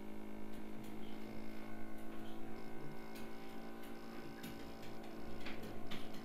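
Steady electrical hum with several faint, irregular clicks.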